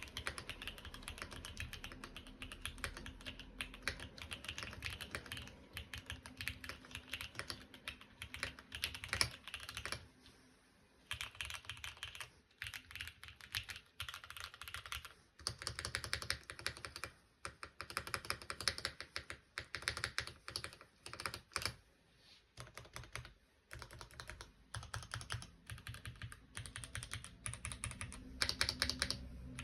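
Typing on a KBDfans Tofu 2.0 mechanical keyboard with Gateron Black Ink V2 linear switches on a carbon fibre plate: fast runs of key clacks, broken by a few short pauses.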